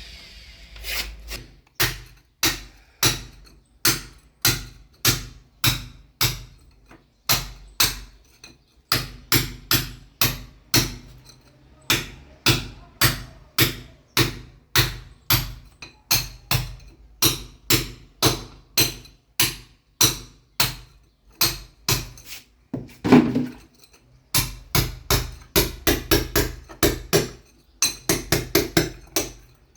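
Hammer blows striking concrete, about two a second with a few short pauses, coming quicker in short runs near the end.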